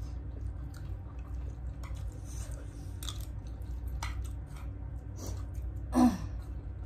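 Close-up chewing of food, with small wet mouth clicks and squishes. About six seconds in there is one short, louder voice sound that falls in pitch.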